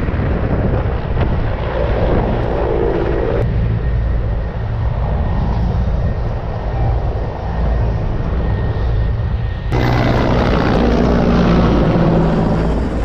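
Military helicopter's rotor and turbine engines running low overhead, a steady heavy drone that turns suddenly louder about ten seconds in.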